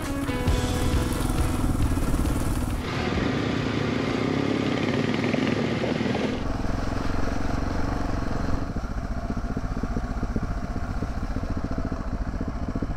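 Motorcycle engine running under way on a dirt trail, with wind noise on the microphone; the sound changes abruptly twice, about three and six seconds in. Background music trails off in the first seconds.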